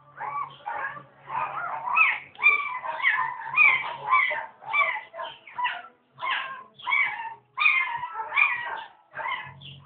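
Newborn German shepherd puppies whimpering and squealing: a run of short, high cries, about two a second, each bending in pitch.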